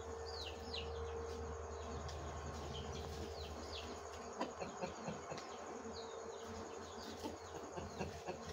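A steady buzzing hum, with short falling chirps of small birds scattered over it and a few faint ticks near the middle.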